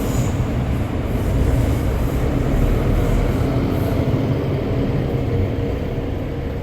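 Steady low rumble of a large passing vehicle, with no clear rise or fall.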